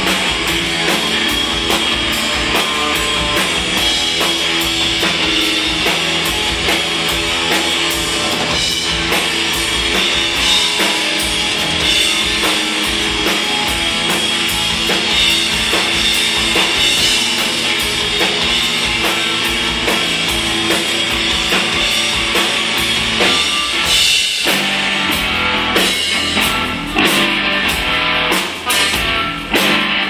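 Live rock band playing loud: electric guitar, bass guitar and drum kit together in a steady driving rhythm. In the last few seconds the playing breaks into short stop-start hits.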